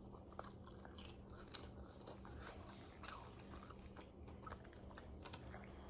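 Faint chewing and eating sounds with scattered small clicks and smacks.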